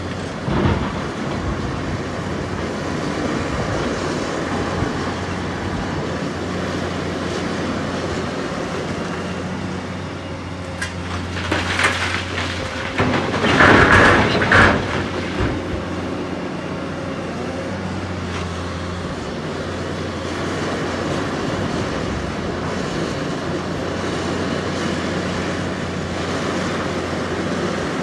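Doosan DX530 excavator's diesel engine running steadily as the machine swings. Starting about twelve seconds in, a bucketload of quarry rock is dumped into a semi-trailer: a loud crashing clatter of stone on steel lasting about three seconds.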